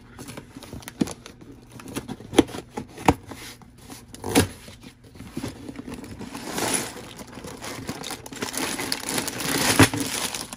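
A LEGO set's cardboard box being opened by hand: a few sharp snaps and tears as the perforated tabs and flaps are broken open, then from about halfway through the crinkling and rustling of the plastic parts bags as they are handled and pulled out.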